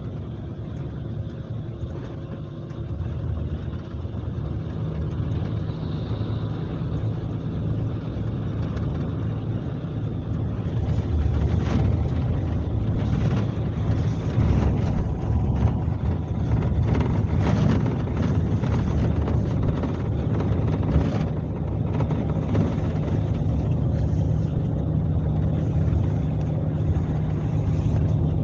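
Scania K370C coach's diesel engine running under way, heard on board over road noise. It grows louder about ten seconds in, and short knocks and rattles come through for roughly ten seconds before it settles back to a steady drone.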